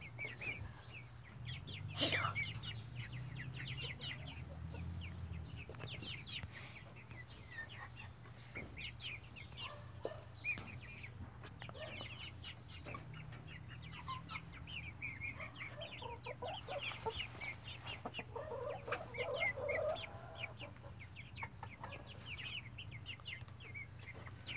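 A pen of half-grown chicks, mostly Easter eggers, peeping continuously in many short, high, falling calls, with lower clucking calls about two-thirds of the way through. A sharp knock about two seconds in is the loudest sound.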